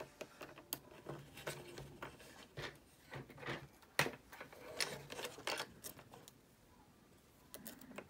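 Faint, irregular metal clicks and scrapes of a tension bar and lock pick being worked in the key lock of a SentrySafe fire chest, with a quiet spell near the end.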